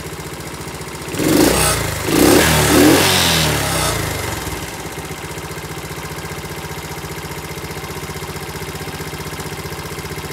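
A Honda CT70 minibike's small single-cylinder four-stroke engine, exhausting through a test pipe in place of the muffler baffle. It is idling steadily, is revved in a few quick throttle blips from about a second in, and settles back to idle.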